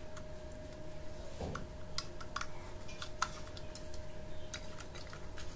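Scattered small clicks and scrapes of a small screwdriver working the screw terminals of a wiring fitting as wires are fastened in, over a faint steady tone.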